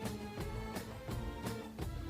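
Background music with a steady beat, about three beats a second.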